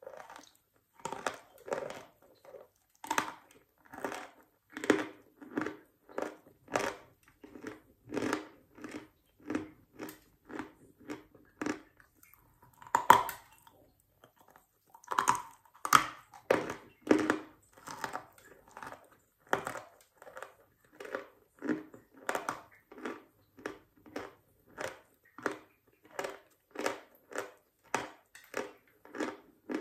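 Close-up chewing of dry, medium-hard chalk: steady crunching chews a little more than once a second, with louder, sharper crunches of bites taken off the chunk about midway through.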